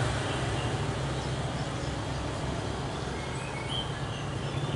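Steady outdoor background of town traffic hum, with a few faint short bird chirps about three to four seconds in.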